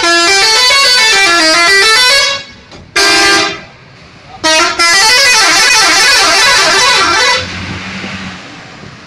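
Indonesian bus 'telolet' musical horn playing a tune of quick notes stepping up and down. It sounds in a long run, then a short blast, then a second long run, and dies away to a low hum near the end.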